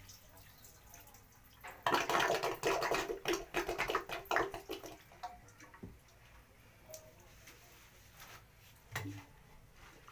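Water splashing and draining in a clogged toilet bowl. It is loudest for about three seconds from two seconds in, then goes faint.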